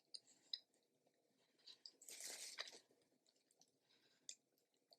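Faint, close mouth sounds of someone chewing a mouthful of glazed steak kebab: a few small wet clicks, with a short breathy hiss about two seconds in.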